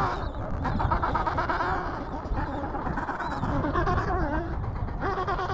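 Adélie penguin colony calling: many overlapping harsh, wavering calls from birds nearby and further off, with a few short high chirps among them.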